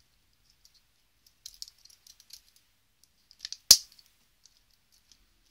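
Plastic housing of a BlackBerry 957 handheld squeezed at the corners: light scattered plastic clicks, then one sharp, loud snap near the end as the front cover clips into place.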